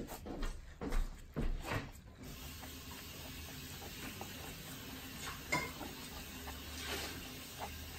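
Hands rolling and pressing a kimbap in its dried seaweed (gim) sheet on a wooden cutting board. Rustling and soft bumps of the roll against the board come several times in the first two seconds, then quieter scattered rustles and ticks over a steady hiss.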